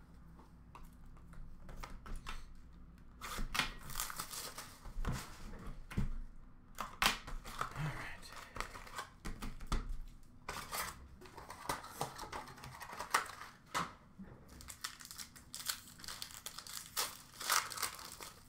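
Foil hockey-card pack wrappers being torn open and crinkled by hand, in several crackly bursts with small clicks and handling noises between them.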